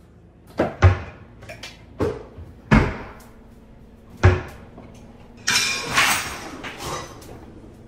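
Kitchen cabinet doors knocking open one after another, four sharp knocks, then a drawer sliding open with a rattle about five and a half seconds in.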